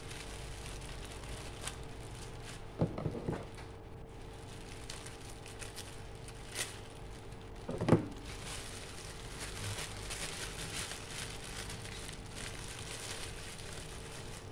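Parcel wrapping crinkling and rustling as it is handled and pulled open by hand, with two louder knocks of handling, one about three seconds in and one about eight seconds in.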